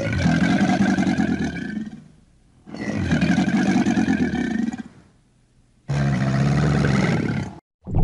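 Crocodile calling: three long, low, rough calls of about two seconds each, with short pauses between them.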